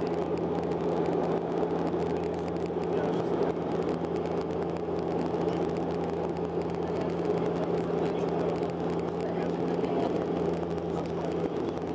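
Cabin noise of a Bombardier Dash 8-Q400 in flight, heard inside the passenger cabin: its two Pratt & Whitney PW150A turboprops and six-bladed propellers give a steady drone with a constant low hum.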